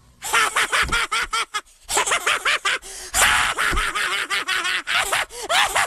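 A crowd of cartoon children's voices, many short rising-and-falling utterances overlapping quickly with breathy noise between them.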